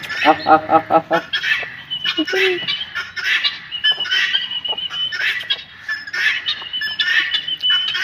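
Backyard poultry calling while being fed: a quick run of honking calls in the first second, then scattered short chirps and high whistled notes.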